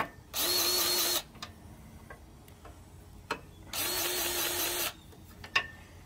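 Cordless battery grease gun running in two short bursts, each about a second long, the second a little longer, pumping grease into sawmill grease fittings. A few small clicks come between the bursts.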